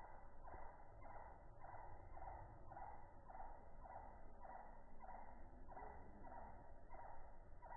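Faint animal call repeated evenly, about two calls a second.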